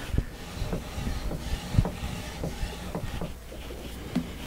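Scattered small metallic clicks and taps of a screwdriver and parts being handled while the gib adjustment screws are worked on a bench mill's Y-axis slide, over a steady low hum.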